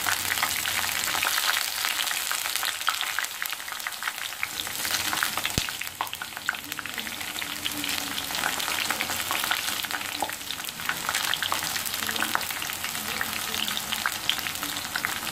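Batter-coated ivy gourd slices deep-frying in hot oil: a steady, dense crackling sizzle as the pieces are still bubbling hard and not yet crisp. One sharp click about five and a half seconds in.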